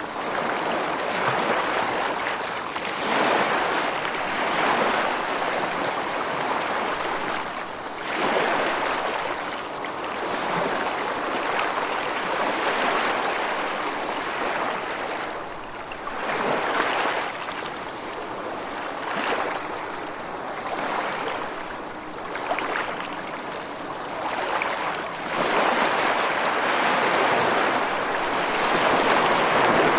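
Rushing water, a steady wash of noise that swells and eases every few seconds.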